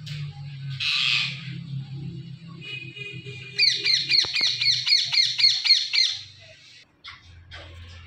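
Indian ringneck parakeets calling: a single harsh squawk about a second in, then a fast run of about a dozen sharp, repeated screeching calls, some five a second, that stops about six seconds in.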